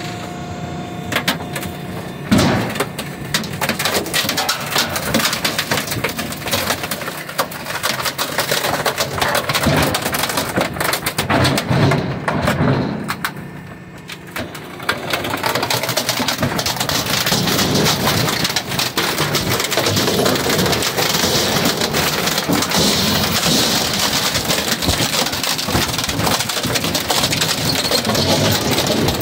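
Hydraulic garbage compactor crushing a wooden dresser: a dense, continuous crackle of wood cracking and splintering over a steady low hum, easing briefly about halfway through.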